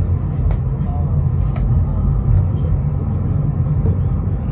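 Steady low rumble of the Stoosbahn funicular car running on its track, with two light clicks about half a second and a second and a half in.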